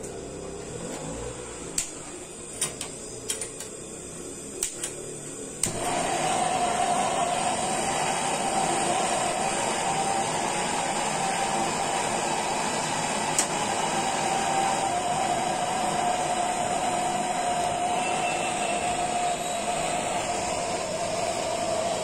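A hand-held gas brazing torch: a few sharp clicks, then about six seconds in it lights and burns with a steady, loud hiss and a faint steady tone, heating a copper pipe joint for brazing.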